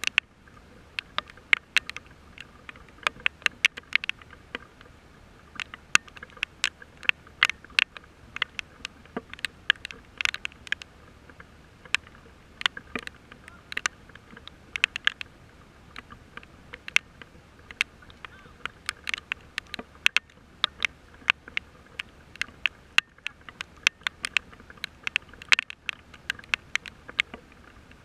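Rain falling, with large drops ticking irregularly and sharply, several a second, on a hard surface close to the microphone over a faint hiss.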